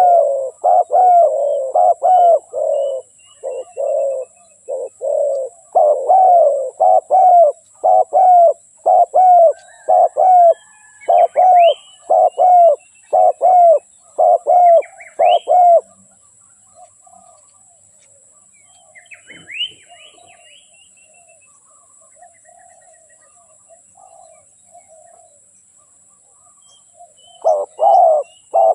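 Spotted dove (tekukur) cooing, a fast run of repeated low coos for about the first sixteen seconds, then only a few soft notes and short high chirps from smaller birds, with the loud cooing starting again near the end. It is a lure recording, meant to set a caged tekukur calling.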